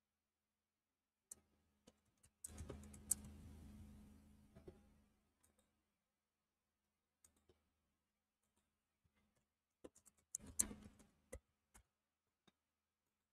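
Faint computer mouse clicks and keyboard typing: a few scattered clicks, then a quick run of keystrokes about ten seconds in. A brief soft rustling noise sets in about two and a half seconds in and fades out within a few seconds.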